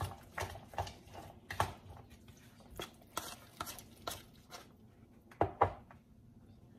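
A spoon stirring chopped salad in a plastic bowl: soft scrapes and taps about twice a second, then two louder knocks about five and a half seconds in.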